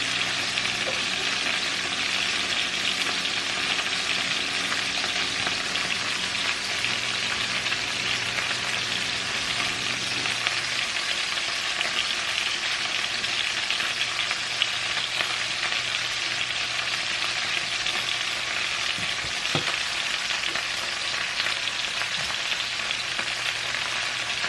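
Diced chicken pieces frying in a skillet: a steady sizzle with no let-up.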